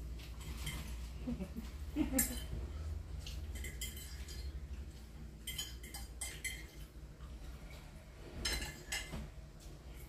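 Forks clinking and scraping against plates in short, scattered clusters as two people eat noodles fast, over a steady low hum.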